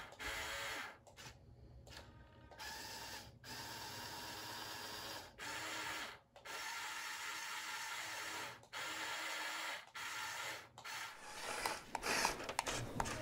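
Electric motors of a brick-built RC heavy forklift whirring as they work the mast, running in stretches of one to two seconds with short pauses between them.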